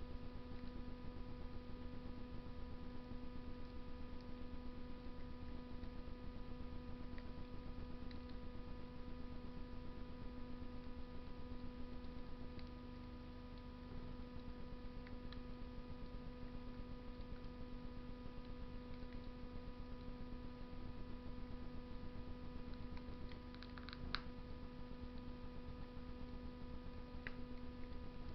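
Wood fire in a Russian masonry stove giving faint, scattered crackles and pops, with a small cluster of pops near the end, over a steady electrical hum.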